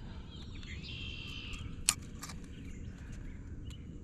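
A songbird calling in a few chirps and a short warbled phrase over a steady low rumble, with one sharp click about two seconds in.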